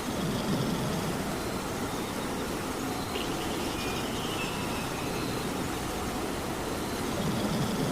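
Steady rain, with a cat snoring over it: one low snore about half a second in and another near the end.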